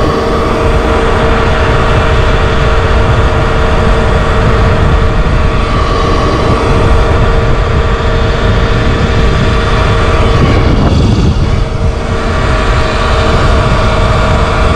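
Wind buffeting the microphone and tyre noise from a Sur-Ron X electric dirt bike cruising at a steady speed on asphalt, with the constant whine of its electric motor. The noise eases briefly about eleven seconds in.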